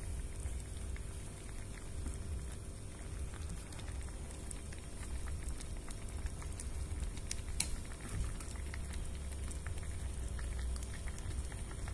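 A small pot of spicy instant-noodle broth boiling: steady bubbling and popping over a low, steady rumble. There is one sharper click a little past halfway.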